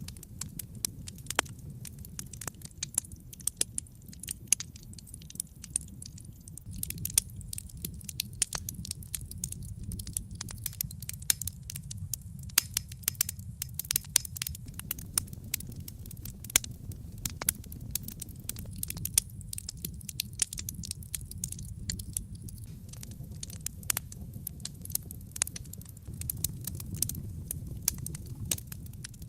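Wood fire burning in a fireplace: a steady low rumble of flame under many irregular sharp crackles and pops from the burning logs. The crackling is thickest through the middle.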